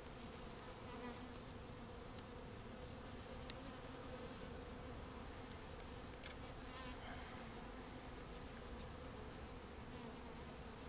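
Steady, faint hum of a honeybee colony buzzing over its open hive frames, with a single sharp click about three and a half seconds in.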